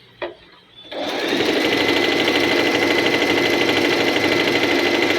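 Singer M3505 sewing machine running steadily at speed, stitching a narrow zigzag, starting about a second in after a brief click.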